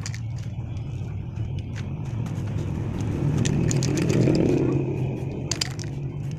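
A vehicle engine's low, steady rumble that swells for a couple of seconds around the middle and then eases off, with a few sharp clicks near the end.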